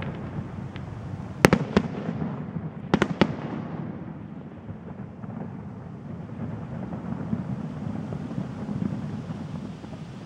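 Aerial firework shells bursting: a sharp bang about a second and a half in, then a quick cluster of three bangs about three seconds in, followed by a low rumble that slowly fades.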